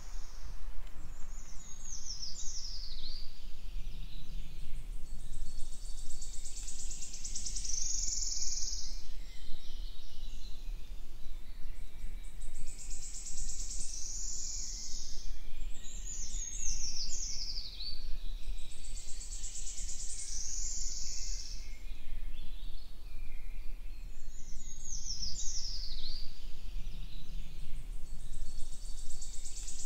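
Songbirds singing in the woods: high phrases of quickly falling notes and denser warbling bursts that recur every several seconds. Under them runs a steady low rumble.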